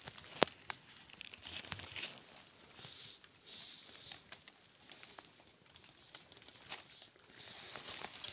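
Rustling and crinkling from handling a caught red junglefowl among dry leaves: feathers and leaves rubbing, with scattered sharp clicks and taps.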